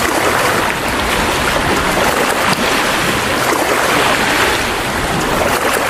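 Wave pool waves breaking and churning close by: a loud, steady rush of splashing water that swells and eases slightly.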